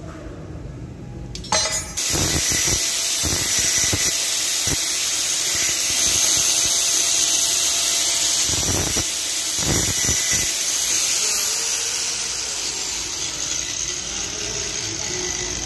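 Angle grinder with a thin abrasive cut-off disc cutting through steel threaded rod: it starts suddenly about two seconds in and runs as a loud, steady, hissing grind.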